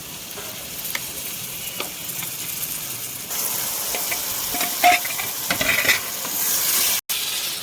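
Marinated chicken frying in hot oil in a pan, sizzling steadily while being stirred, with occasional scrapes against the pan. The sizzle gets louder about three seconds in.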